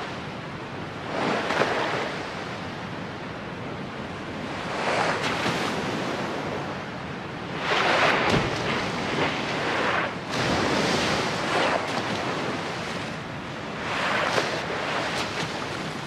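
Rushing sea water in the ocean ambience, swelling and fading in about five slow surges a few seconds apart.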